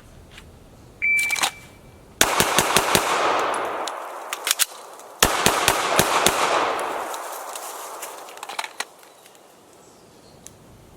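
A shot timer beeps once, then a pistol fires a fast string of five shots. After a pause of about two seconds with a few small clicks of a slide-lock reload, it fires five more quick shots, each shot ringing on briefly.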